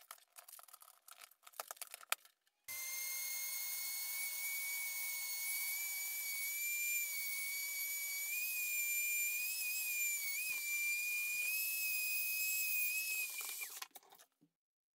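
Flexible-shaft rotary tool with a small grinding stone grinding the edge of a steel blade: a steady high whine that starts about three seconds in, wavers slightly in pitch as the stone bears on the steel, and cuts off near the end. A few light handling clicks come before it starts.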